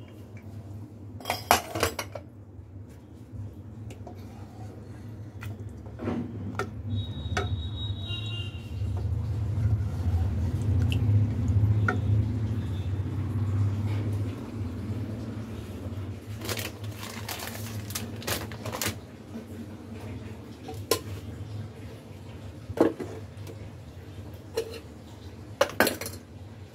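Steel pots, lids and utensils clanking and clattering as they are handled on a kitchen stovetop, in scattered knocks, over a low hum that grows louder in the middle.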